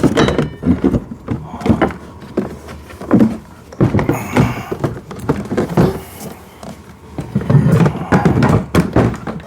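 Hard parts of a kids' ride-on toy car knocking and clattering as they are handled and fitted during assembly: a string of irregular thunks and knocks with some rustling between them.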